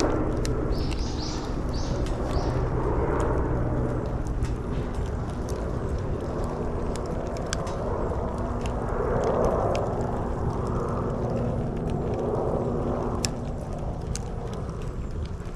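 Bonfire of cleared bamboo burning, with scattered sharp crackles and pops over a steady low rumble. A few short high chirps come about a second in.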